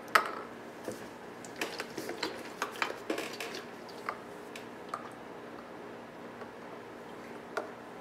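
A small brush scrubbing a cassette deck's control circuit board, with scattered light clicks and taps from handling the board, quieter for a couple of seconds near the end.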